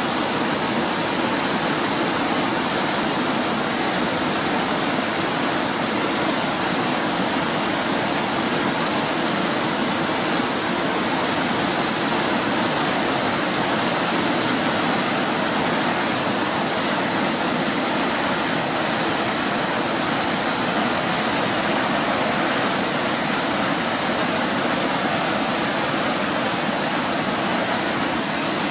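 Waterfall on a mountain brook, a steady, unbroken rush of falling water.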